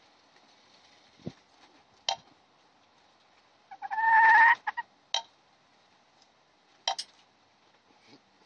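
A hen gives one loud, drawn-out squawk about four seconds in. A few sharp taps come as it strikes the motorcycle's chrome engine.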